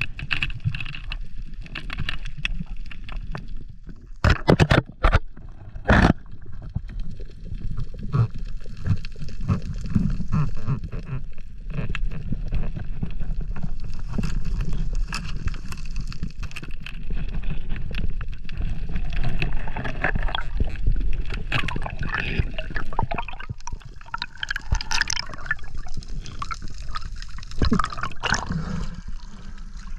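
Underwater water noise picked up by an action camera in its waterproof housing: muffled gurgling and sloshing, with a few sharp knocks about four to six seconds in.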